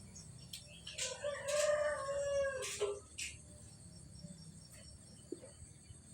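A rooster crowing once, starting about a second in and lasting about two seconds, with faint insects chirping steadily behind.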